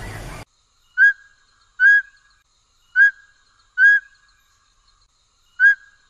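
Mountain scops owl calling: short, clear whistled notes given in pairs a little under a second apart, each pair repeated every two to three seconds.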